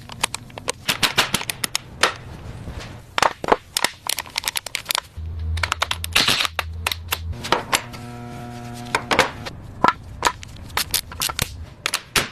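Rapid metallic clicks and clinks of tools and camshaft parts being fitted on a V10 engine's cylinder head. A low hum sits under the clicks for about two seconds near the middle, and a short buzzing tone follows at about eight seconds.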